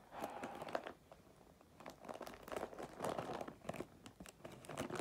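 Wrapping paper crinkling and rustling as it is folded around a present, in irregular bursts with a short lull about a second in.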